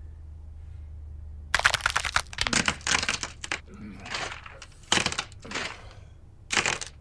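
Sound effect of a body transforming: quick clusters of cracking and crunching in several bursts, starting about a second and a half in.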